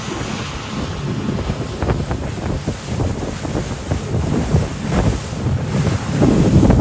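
Wind buffeting the microphone on a moving boat, over the rush of water, with no clear engine tone. The gusts grow louder about six seconds in.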